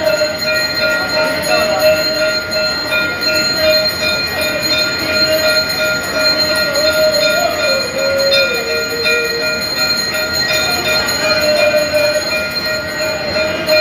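Temple bells ringing continuously during the aarti, a dense metallic clangour with several steady ringing tones; one of the tones sags lower briefly about eight seconds in.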